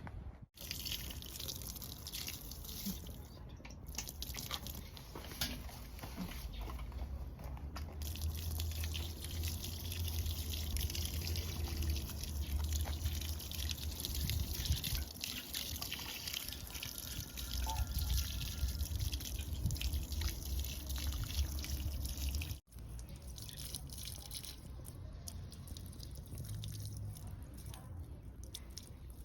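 Water dripping: many small drops falling in an irregular patter.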